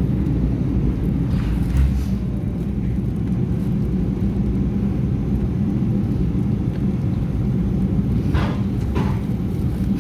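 Steady low rumble of an engine running, as from a moving vehicle, with a couple of brief hissing swishes about a second and a half in and again near the end.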